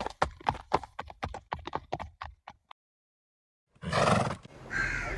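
A horse's hooves clip-clopping at a steady trot, about five strikes a second, fading out about halfway through. After a second of silence comes a short call near the end.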